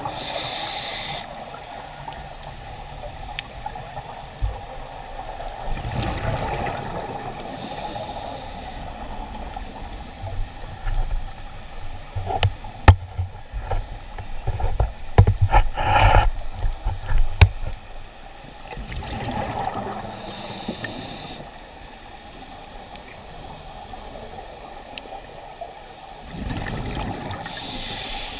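Scuba diver's breathing heard underwater: bubbling exhalations from the regulator come in bursts every few seconds. About halfway through, a run of sharp clicks and knocks joins the bubbling for several seconds.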